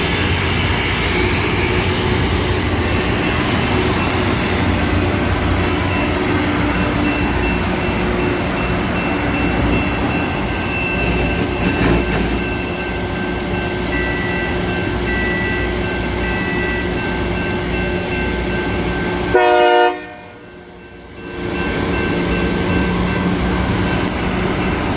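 Loram rail grinder running loud and steady as it grinds the rails, with a short horn toot about nineteen seconds in, after which the sound drops away sharply for about two seconds.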